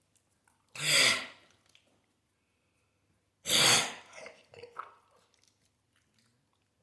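A dog coughing: two harsh coughs about three seconds apart, the second trailing off in a few smaller huffs.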